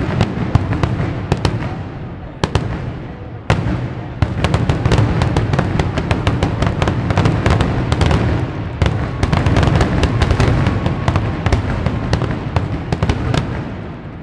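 Fireworks finale: a rapid barrage of shell bursts and crackling reports over a continuous low rumble. It thickens into a dense volley about three and a half seconds in and thins out near the end.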